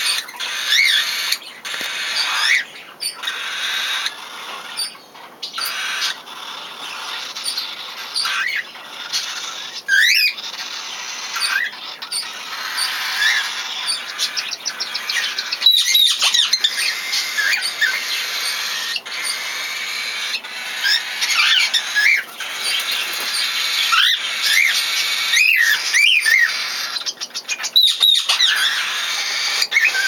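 Cockatiels chirping: many short, rising calls, one after another, over a steady hiss.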